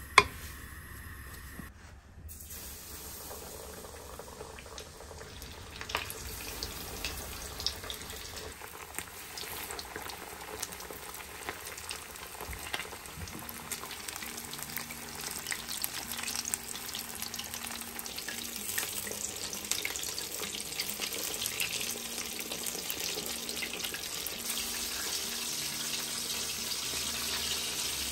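Starch-coated chicken pieces deep-frying in hot oil: a dense, crackling sizzle full of tiny pops that grows slowly louder.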